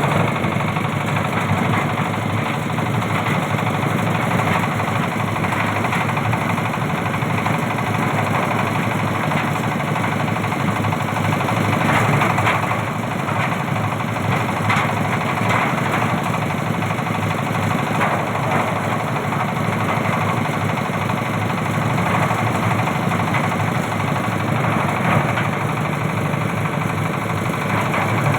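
Motor-driven oil palm fruit stripping machine running: a steady engine drone with a continuous clattering rattle.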